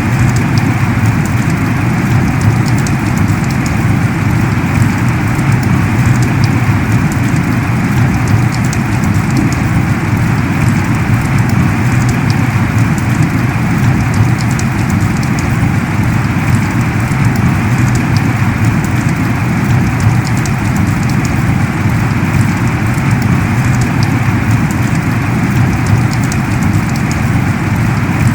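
Heavy rain pouring steadily in a torrential downpour: a dense, even hiss with no breaks.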